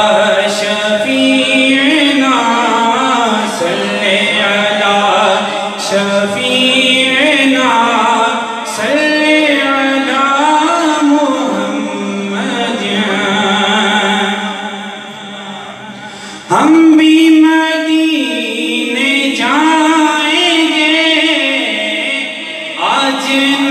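A man singing a naat, an Islamic devotional song in praise of the Prophet, solo and unaccompanied into a handheld microphone, in long, wavering phrases. About two-thirds of the way through the voice drops back, then a new phrase comes in suddenly louder.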